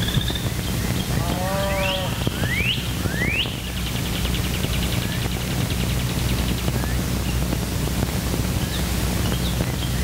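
Rural farm ambience over a steady low hum. A farm animal gives one short call about a second and a half in, then birds call: three quick rising whistles and a fast trill lasting a few seconds.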